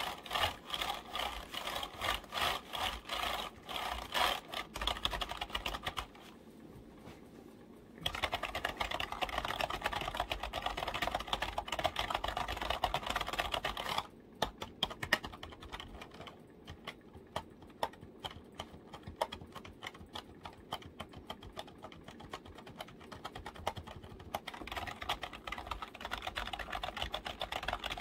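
Computer keyboard keys tapped in quick runs of clicks, with a pause of about two seconds near the start. In the middle the tapping turns lighter and sparser, then grows busier again near the end.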